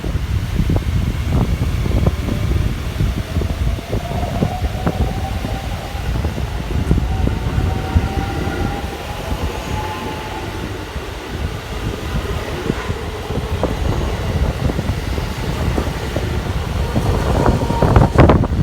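JR West electric train running through the station: a heavy low rumble with scattered wheel clicks over the rail joints, and a whine that slowly rises in pitch over several seconds.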